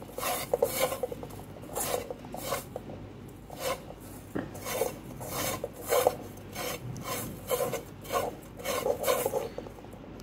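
Dry breadcrumbs rustling and scraping against a metal pan as a hand rolls a potato cheese ball through them, in repeated strokes about twice a second.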